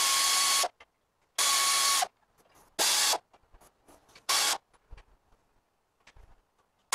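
Pneumatic air ratchet run in four short bursts of about half a second each, with a steady whine from the air motor, snugging the nuts on the front leaf-spring mounting hardware. A fifth very short burst comes at the end.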